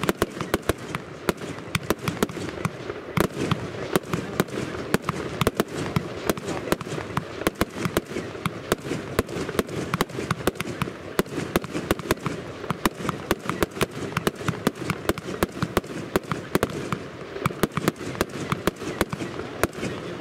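Consumer fireworks battery (Elite Brand Event Box Palm Battery W-105) firing shot after shot without a break: many sharp bangs of launches and bursts each second.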